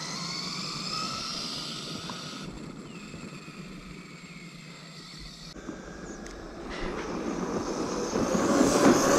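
1/5-scale Arrma Outcast electric RC truck on a full-throttle speed run: the high whine of its motor fades as it races away. It then comes back, getting steadily louder over the last couple of seconds, with its tyres tearing through loose dirt.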